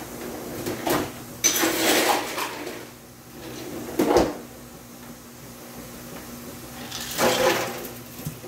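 Kitchen handling noises: a click about a second in, then a clattering rattle lasting about a second, a sharp knock about four seconds in, and another short clattering rattle near the end.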